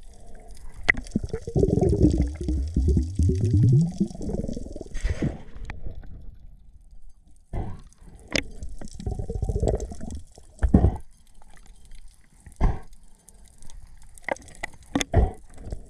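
Water sloshing and gurgling close to the microphone for the first few seconds, then a scattering of sharp knocks.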